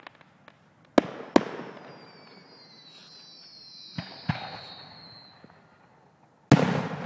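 Fireworks going off: two sharp bangs about a second in and two more around four seconds in, then a louder boom near the end with a long fading tail. Between the bangs, a thin whistle falls slowly in pitch.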